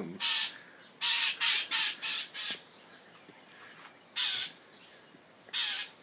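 Northern mockingbird giving harsh, raspy scold calls: a quick string of about six in the first two and a half seconds, then one about four seconds in and another near the end. These are the agitated territorial calls of a bird that the owner calls aggressive.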